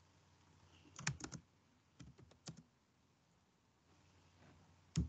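Faint computer keyboard typing: short runs of keystrokes, one cluster about a second in, another about two seconds in, and a single sharper keystroke near the end.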